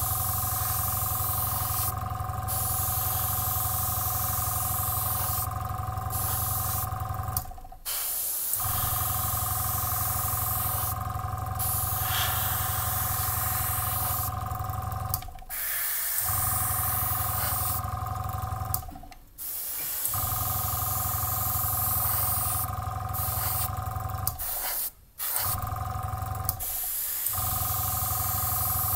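Airbrush compressor running with a steady hum, while the airbrush gives short hisses of air and paint every few seconds. The sound drops out briefly a few times.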